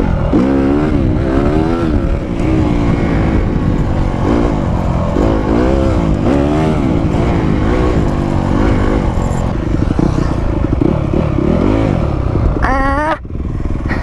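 Dirt bike engine running hard on a trail ride, the revs rising and falling over and over as the throttle is worked. Near the end it revs up high and then drops off sharply.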